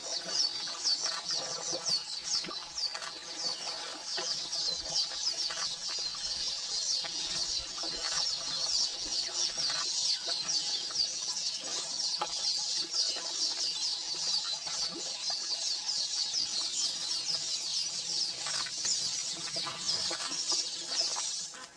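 A steady chorus of rapid, high-pitched chirping, many short calls a second, from a wildlife chorus.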